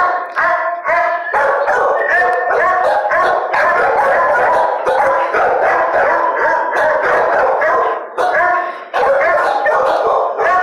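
Kenneled shelter dogs barking, with some howling: many overlapping barks at different pitches in a loud, almost unbroken din.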